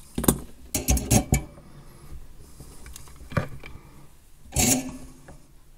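Knocks and clatter of things being handled on a workbench: a plastic charger housing and tools picked up and set down. A few sharp knocks in the first second and a half, one more about three seconds in, and a short clatter near the end.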